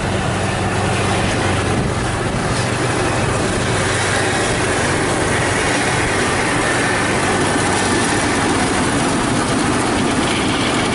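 Kubota DC70 combine harvester running steadily while cutting flattened rice: its diesel engine and the clatter of the cutter bar and threshing machinery blend into one dense, continuous mechanical noise.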